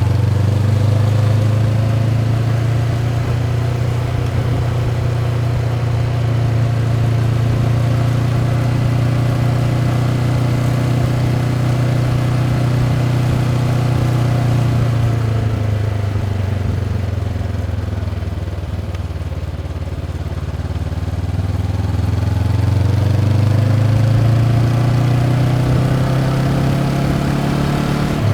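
Honda CB500X's parallel-twin engine through its stock exhaust, riding at a steady pace. Past the middle the note drops as the rider rolls off, then climbs again as it picks up speed and settles.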